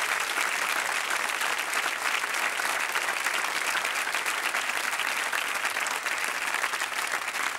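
Studio audience applauding: many hands clapping in a dense, steady applause.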